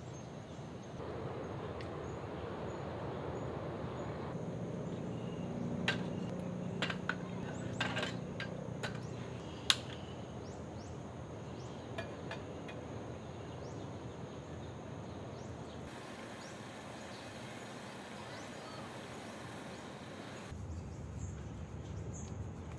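Steady outdoor background noise with a cluster of sharp clicks and knocks about six to ten seconds in, from camp cookware and a small gas stove being handled.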